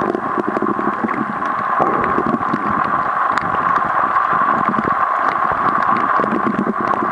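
Underwater reef ambience heard through a camera underwater: a steady hiss with a constant, irregular crackle of sharp clicks.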